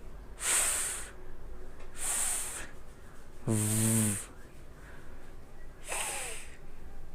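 A person pronouncing isolated English fricative consonants one at a time as a pronunciation demonstration: four drawn-out sounds each about half a second long with short gaps, three voiceless hissing ones and the third a voiced, buzzing one.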